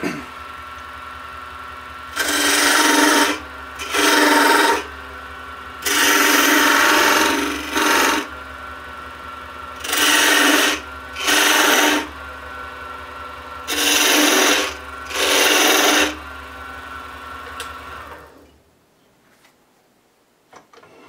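A wood lathe runs steadily, at about 1400 RPM, while a parting tool is pushed into the spinning wooden spindle in eight short bursts, mostly in pairs. Each is a loud scraping cut lasting about a second. The lathe's steady hum stops about 18 seconds in.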